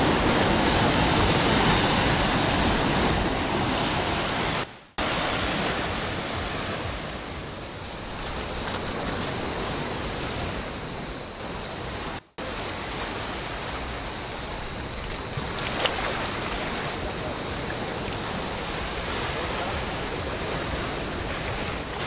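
Sea waves breaking and washing over a rocky shore, a steady roar of surf. It cuts out abruptly twice, briefly, about five and twelve seconds in.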